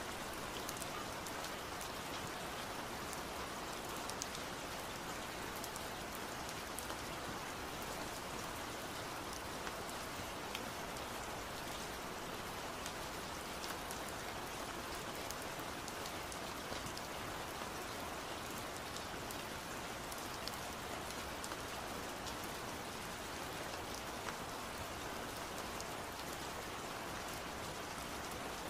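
Steady rainfall: an even hiss of rain with scattered drop ticks, unchanging throughout.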